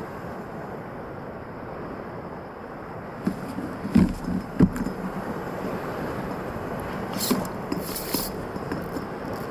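Steady wind and water noise on an open-water kayak, with a few sharp knocks from gear or the hull about four seconds in and brief hissing scrapes near the end.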